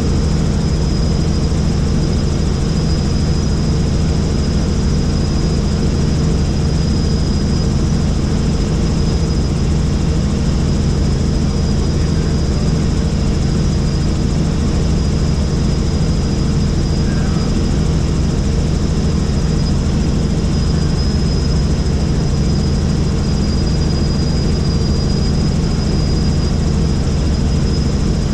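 Helicopter in flight: steady, unbroken engine and rotor noise, heaviest in the low end, with a thin high whine held steady over it.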